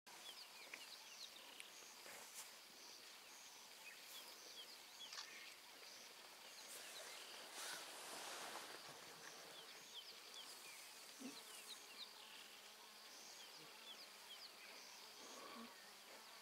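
Faint natural ambience in the bush: a steady high insect drone with many short, high chirps scattered throughout, and a brief louder rustling noise about eight seconds in.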